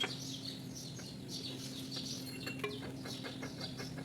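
Small birds chirping over and over above a steady low hum, with a few faint clicks late on.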